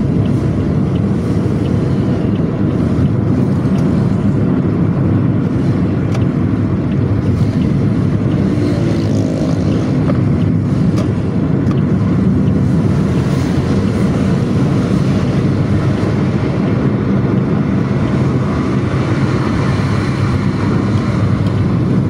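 Steady low engine hum with road and wind noise inside a moving vehicle, holding at an even level throughout.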